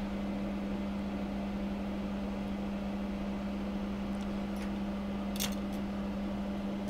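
Steady machine hum: one constant low tone over a faint hiss, with a few faint clicks about five and a half seconds in.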